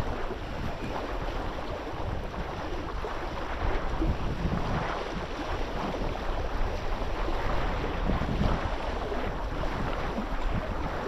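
Wind buffeting the microphone, with an uneven low rumble, over the wash of water and waves.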